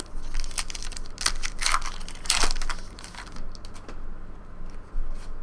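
Trading card pack wrappers and cards being handled: crinkling and rustling in short, irregular bursts, the loudest about two and a half seconds in.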